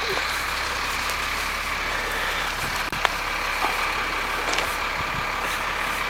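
A bus engine running steadily, with a low hum and a few faint clicks.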